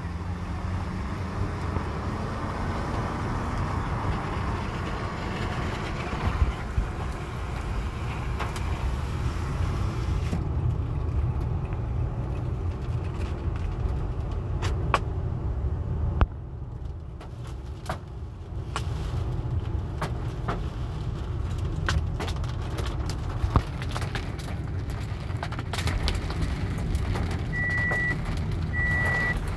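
Steady low rumble of a car heard from inside the cabin, with rain hissing against the body and glass and many scattered sharp taps of drops hitting it. The hiss drops away about a third of the way through while the rumble and taps go on. Near the end a high electronic beep sounds several times.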